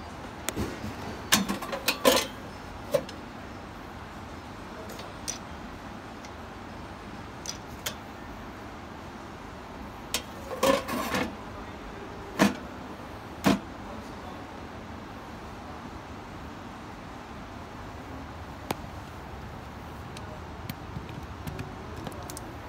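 Short plastic clicks and knocks from an air fryer's basket drawer and handle being handled, in a cluster about a second in and another about ten seconds in, over a steady background hiss. A few small clicks near the end as a plug is pushed into a wall socket.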